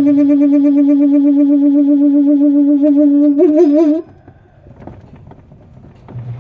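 Spin-dryer side of a Samsung twin-tub washing machine squealing as the basket spins: a steady squeal that wavers in pitch, then cuts off suddenly about four seconds in, leaving faint clicks. Such a squeal is often from a dried-out seal where the shaft turns, or could be worn motor bushings.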